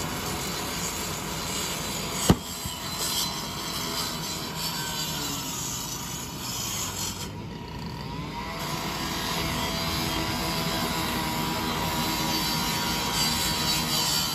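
A burning car's front end fizzing and hissing as it throws showers of sparks, with one sharp pop about two seconds in. The fizzing dies down for a moment in the middle, then picks up again.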